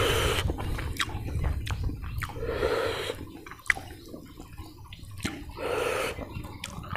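Close-miked wet chewing and lip-smacking while eating rice and pork curry by hand, with many sharp little mouth clicks and, every few seconds, a softer rushing swell.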